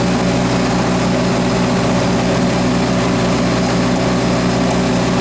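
Hercules IXB engine of a 1954 Hobart 10 kW military generator set running steadily at an even speed.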